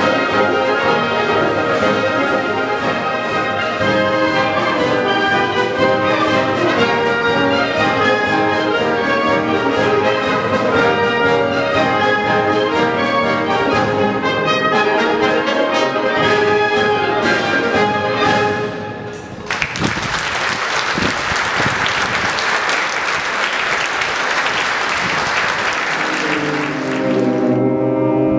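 Military concert band of clarinets, saxophones, flutes, trumpets, tuba and drums playing a piece to its close. About two-thirds of the way through the music stops and the audience applauds for several seconds, and near the end the band begins a new, slow piece on held low chords.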